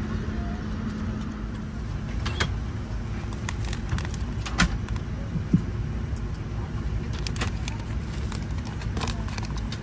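Steady low rumble of the Boeing 787-10 airliner cabin, with a handful of short clicks and crinkles as a plastic packet of earphones is handled.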